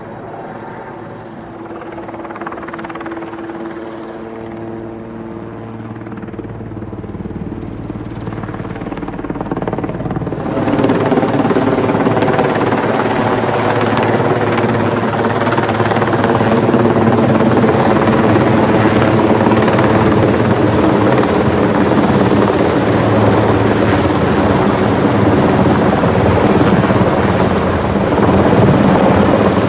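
Helicopter carrying a container on a long sling line, its rotor and engine drone growing steadily louder as it approaches. The sound fills out sharply about ten seconds in and stays loud.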